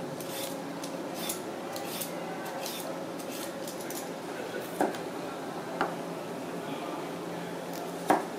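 A Y-shaped vegetable peeler scraping down a raw carrot in a series of quick strokes, stopping after about four seconds. A couple of light knocks follow, then a sharper knock near the end as a chef's knife cuts through the carrot onto a plastic cutting board.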